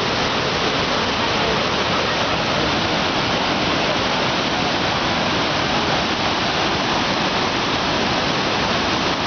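Waterfall pouring: a loud, steady rush of falling water that does not let up.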